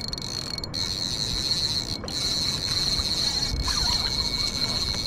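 Spinning reel's drag buzzing steadily as a hooked gummy shark pulls line off, with a brief break about two seconds in.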